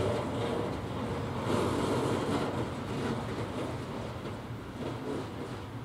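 Freight train of hopper and tank wagons rolling away along the track, its wheels rumbling and clicking on the rails. The sound fades gradually from about two seconds in.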